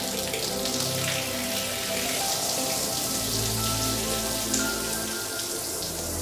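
Soapy water showering from a watering can's sprinkler rose onto a wet rug and tiled floor, a steady rain-like hiss, with background music underneath.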